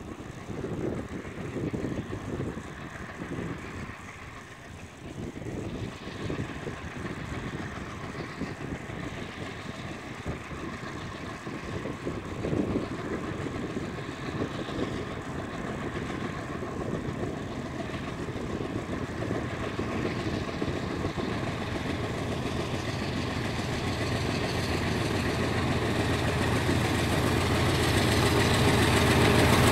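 A GE C36-7i diesel-electric freight locomotive's 16-cylinder diesel engine working as it pulls a freight train away. It grows steadily louder as it comes closer.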